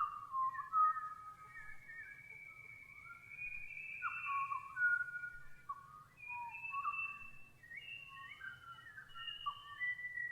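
Several birds singing together: overlapping whistled notes, many sliding down in pitch, with one longer held note in the first half.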